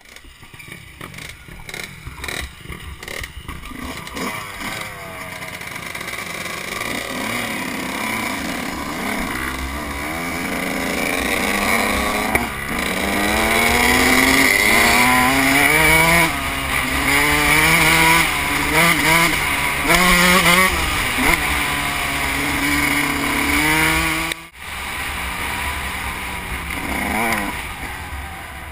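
Suzuki RM125 two-stroke dirt bike engine, heard from the bike itself, pulling away from a low, uneven idle and revving up through the gears, its pitch climbing and falling back at each shift. About 24 seconds in the throttle snaps shut for a moment, then the engine picks up again.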